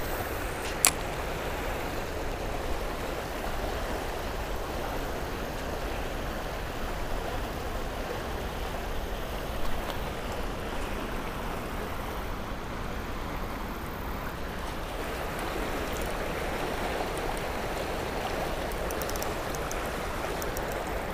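Steady rush of river water flowing over a shallow rapid, with a single sharp click about a second in.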